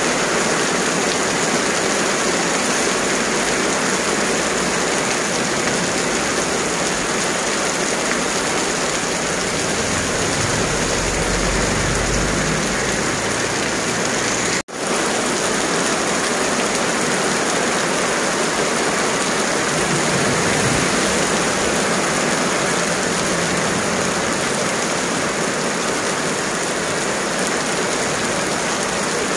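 Heavy rain pouring steadily onto an asphalt road and paving, a dense even hiss, broken by a very short gap about halfway through.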